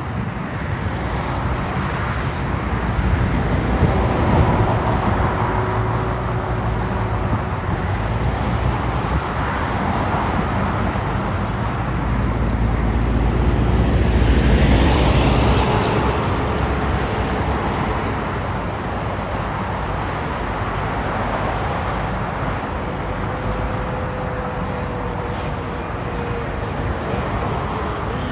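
Steady road traffic on a city avenue: cars passing in a continuous wash of engine and tyre noise, with a deep rumble. It swells at about four seconds, then louder about halfway through as a vehicle goes by close.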